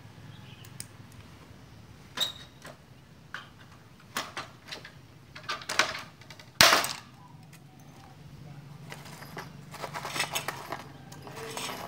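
Hand pop-rivet gun at work on aluminium: a few clicks of the handle, then one sharp, loud snap about six and a half seconds in as the rivet's mandrel breaks off. Near the end, a run of light clinking and rattling.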